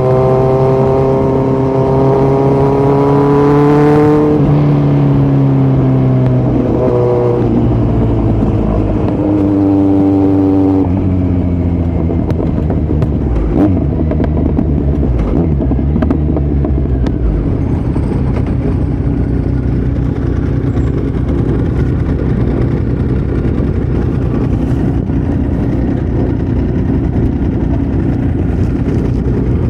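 2018 Kawasaki Z900's inline-four engine through a Yoshimura muffler and Delkevic headers with no dB killer, pulling hard with rising revs for about four seconds, dropping as the throttle is cut or a gear changes, then pulling up again near ten seconds. After that it runs steadier and rougher, without a clear rising note.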